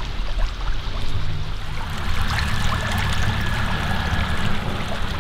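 Small stream running and trickling over shallow gravel, with a steady low rumble underneath. A thin steady high tone holds for about two seconds in the middle.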